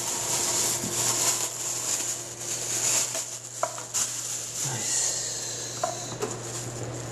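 Automatic pancake machine running as it bakes pancakes between heated plates: a steady hiss and low hum, with a few light clicks in the middle.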